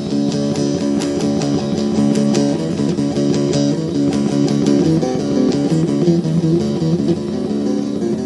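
Instrumental break of a Turkish folk song: plucked string instruments play a quick, busy melody over a steady low accompaniment, with no singing.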